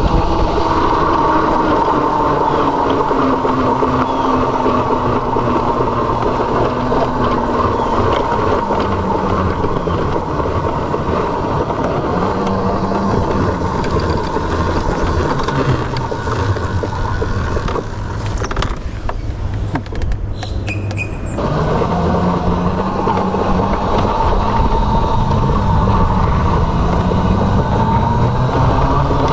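Solar E-Clipse electric motorbike on the move: a motor whine that slowly falls and rises in pitch with speed, over steady road and wind noise.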